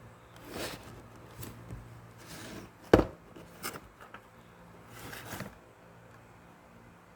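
Packaging of a diecast model car being handled and opened: a few short scrapes and rustles, with one sharp knock about three seconds in.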